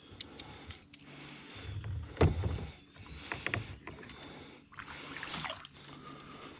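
Irregular knocks and bumps on a kayak, with scattered sharp clicks, while an angler handles a freshly hooked smallmouth bass. The loudest thump comes a little after two seconds in.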